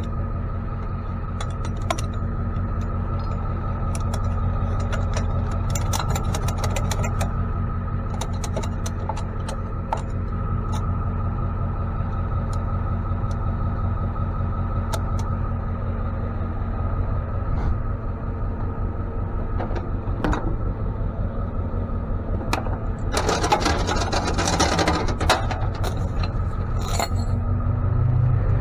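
Tow truck engine running steadily while driving, a constant low drone, with scattered clicks and rattles and a louder burst of rattling near the end.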